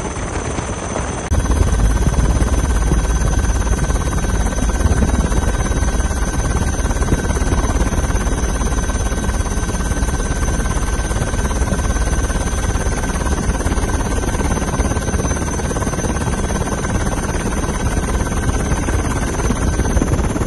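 Helicopter engine and rotor noise heard from aboard: a loud, steady low rumble with a steady whine above it. It gets louder about a second in, then holds steady.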